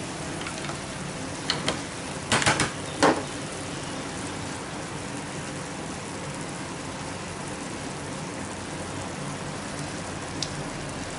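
Minced-meat stuffing sizzling steadily in a stainless steel frying pan over turned-down heat, with a few sharp clicks and knocks about two to three seconds in and one faint click near the end.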